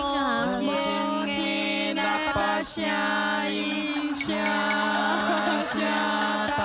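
Women singing a slow Taiwanese Hokkien ballad in long held notes. A second voice holds a harmony under the lead singer and pulls her off key.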